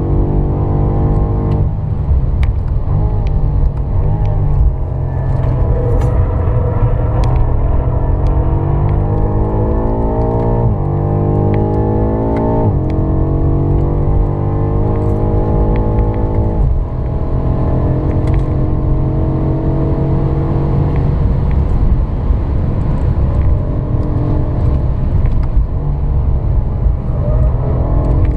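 BMW M5 F90's 4.4-litre twin-turbo V8 heard from inside the cabin at speed, its note climbing steadily in pitch under acceleration. It drops sharply around the middle, once and again about two seconds later, and once more a few seconds after that, before climbing and falling again through the rest.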